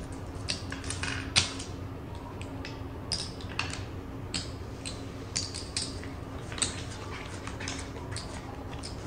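Casino chips clicking against each other as stacks are set down and arranged in the betting spots of a felt blackjack table. The clicks are short, sharp and irregular, a few each second, with playing cards dealt onto the felt toward the end.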